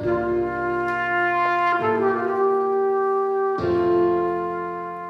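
Trumpet playing slow, held notes over low sustained chords, moving to a new note and chord twice, and getting gradually quieter toward the end.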